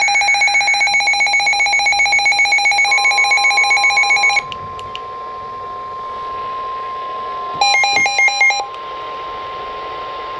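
Weather radio receivers sounding a flash flood warning alert. A fast, rapidly pulsing electronic alarm beep runs for about four seconds and then stops. A steady single-pitch warning tone of about 1 kHz, the NOAA Weather Radio warning alarm tone, starts about three seconds in and holds. A second short burst of pulsing beeps comes about eight seconds in.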